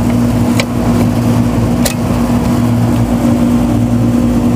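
Sharp clicks about half a second and two seconds in as an air-conditioner disconnect box is opened and its pull-out fuse block is pulled, over a constant low electrical hum of running machinery.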